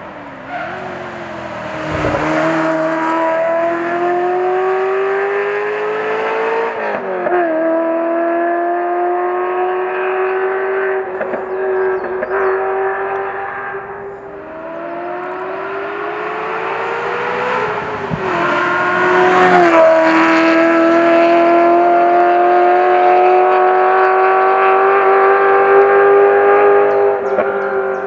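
Ferrari 348's 3.4-litre V8 engine accelerating hard, its pitch climbing in long pulls broken by sudden drops at gear changes. It is loudest in the last third.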